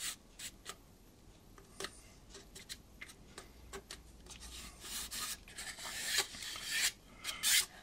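Fingers pressing and sliding along thin laser-cut wooden sides of a model wagon shell, with faint scattered clicks and rubbing. The handling gets louder and busier from about five seconds in as the shell is moved about.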